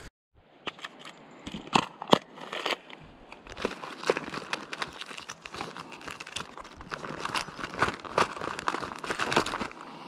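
Footsteps crunching irregularly over dry, stony ground with dry grass.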